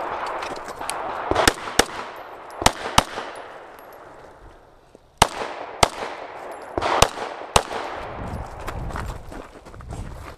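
Pistol fired in a fast string of about a dozen shots, mostly in quick pairs, with a gap of about two seconds midway. Each shot is followed by a short echo.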